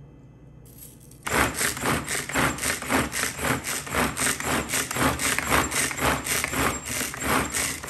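Hand-pulled cord food chopper spinning its blades through onion and tomato: a quick series of whirring strokes, about three a second, starting about a second in. It is pulled many times to chop the vegetables very fine.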